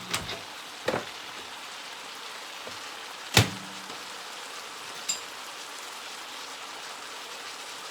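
Chicken with sliced peppers and onions sizzling in a frying pan, a steady hiss, broken by a few sharp knocks, the loudest about three and a half seconds in.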